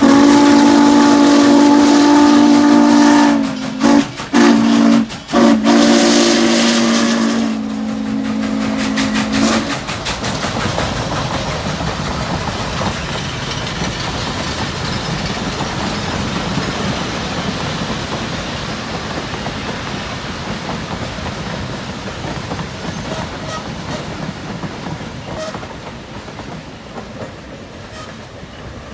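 Norfolk & Western 611's chime steam whistle blowing loud, sustained blasts with a few short breaks for about the first nine seconds. The passing train's freight cars then roll by on the rails, the sound slowly fading toward the end.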